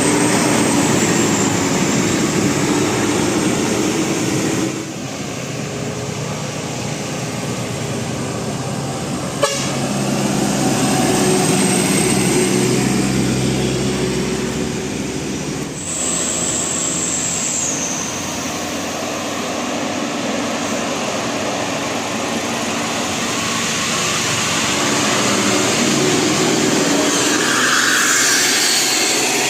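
Loud road traffic of large vehicles passing, with vehicle horns sounding in long held tones. The sound changes abruptly about 5 seconds in and again about 16 seconds in.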